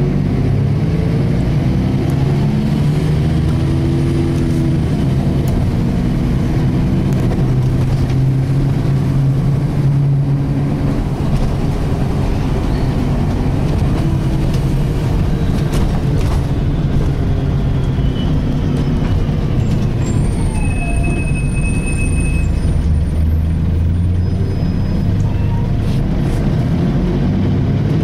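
Volvo B10BLE single-deck bus heard from inside while driving, its diesel engine and drivetrain running steadily. A whine from the differential rises and falls in pitch with road speed; it is a strange diff sound, unusual for this model. About two-thirds of the way through there is a brief high-pitched beep.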